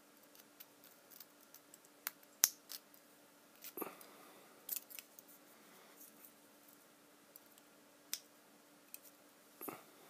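Small multi-tool pliers clicking and scraping against a flashlight's metal tail cap and copper spring while the spring is worked back into place: scattered faint clicks, the sharpest about two and a half seconds in.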